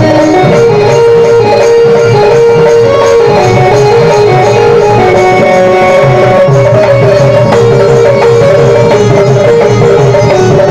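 Live Indian folk dance music: a held, stepwise melody over a steady hand-drum rhythm.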